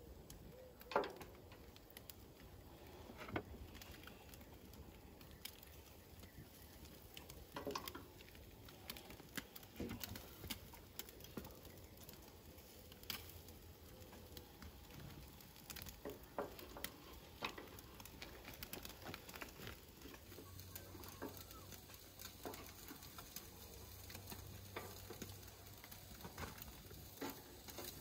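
Metal skewers loaded with chicken wings clinking and knocking as they are laid side by side across a charcoal grill, with scattered small clicks and a faint crackle and sizzle from the hot coals. The loudest knocks come about a second in, at three seconds and near eight seconds.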